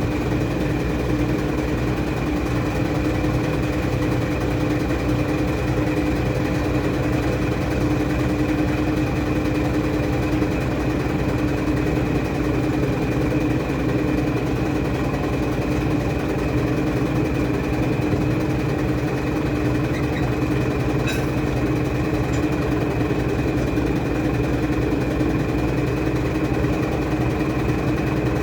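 Washing machine running with a steady motor hum, unchanging throughout, with one faint click about three-quarters of the way through.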